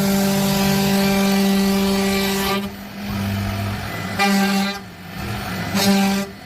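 A horn sounding: one long blast that cuts off about two and a half seconds in, then two short toots near the end.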